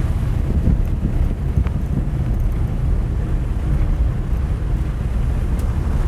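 Strong wind buffeting the microphone, a steady low rumble, with a few faint ticks.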